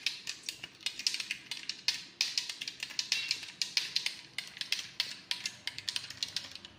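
Metal spoon stirring a drink in a tall glass, clinking quickly and irregularly against the glass wall as the sugar is stirred in; the clinking stops just before the end.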